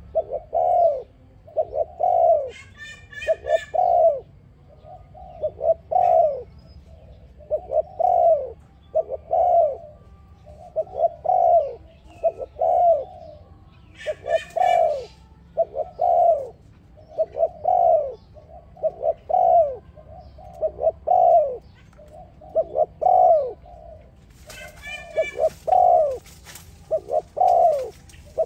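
Spotted dove cooing its song over and over: short phrases of two or three arched, rounded coos, a new phrase about every two seconds. Three times a short burst of fast, high chirping breaks in over the cooing.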